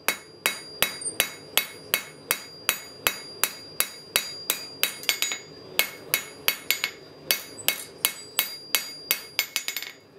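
Blacksmith's hand hammer striking a steel bar on the anvil, drawing the end out to a taper: sharp blows at about three a second, each with a ringing note from the anvil. Near the end the blows turn into a quicker run of lighter taps.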